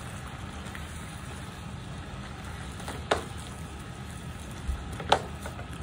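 Diced chicken sizzling in a frying pan with a steady hiss as it is stirred with a spatula, with two sharp clicks of the spatula against the pan, about three and five seconds in.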